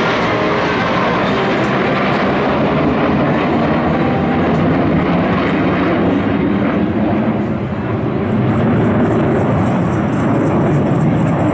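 Military jet fighters making a low flypast, their engines giving a loud, continuous roar that dips briefly near the end before swelling again.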